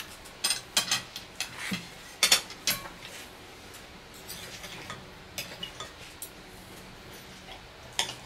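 Knife and fork clinking and scraping on a plate as a steak is cut, in short sharp clinks, most of them in the first three seconds.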